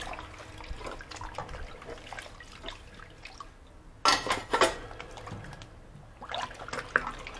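Water trickling and dripping. About four seconds in comes one sudden, short, louder sound.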